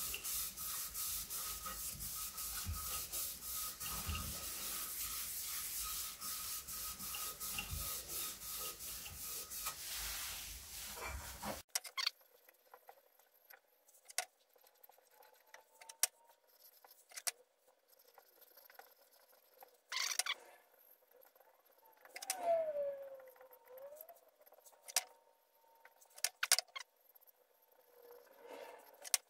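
Sandpaper rubbing against a wooden bowl spinning on a lathe: a steady rasping hiss with a fast, regular flutter, which stops abruptly about twelve seconds in. After that come only occasional faint clicks and knocks, with a short squeak in between.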